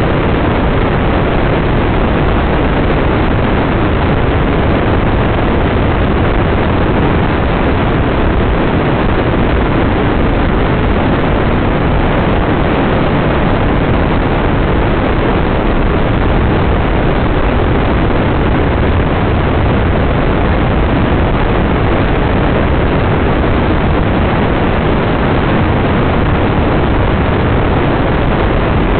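Dune buggy driving on beach sand: a steady, loud rush of engine and wind noise that holds the same pace throughout.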